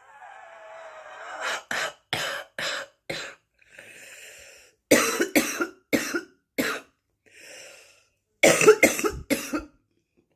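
Woman's smoker's cough: a long breath in, then three fits of four or five harsh coughs each, with a gasping breath in between the fits.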